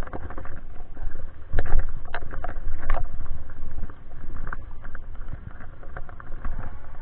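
Riding noise from a moving ebike: a loud, low rumble of wind buffeting the microphone, with a few sharp knocks between about one and a half and three seconds in.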